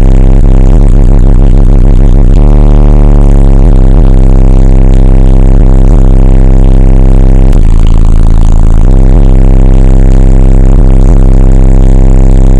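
Bass-heavy music played through eight AudioQue HDC3 18-inch subwoofers at extreme level, heard inside the vehicle's cabin. It is so loud that it overloads the microphone into a distorted drone, with deep bass notes that shift every few seconds.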